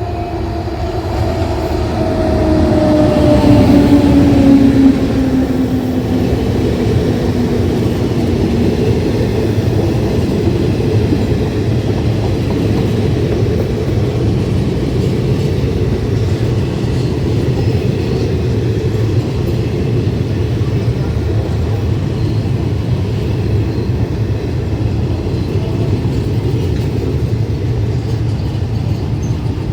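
A passenger train running past. A tone slides slowly downward in pitch over the first several seconds, and the sound is loudest about four seconds in. After that comes a steady rumble of the coaches rolling by on the track.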